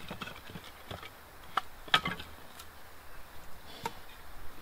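Split firewood being handled and set up for a fire: scattered wooden knocks and clicks, with two sharper, louder knocks a little before two seconds in.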